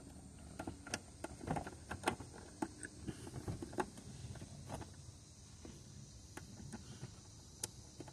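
Scattered light clicks and knocks of a small ratchet and 8 mm socket working on a throttle body's mounting bolts, busiest in the first few seconds and sparser after.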